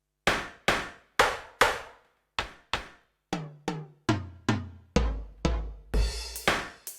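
Yamaha DTX720k electronic drum kit (DTX700-series module) played through one of its kit sounds. There are four even snare-like hits, then a run of tom strikes that steps down in pitch, and low bass-drum thuds with a cymbal crash near the end.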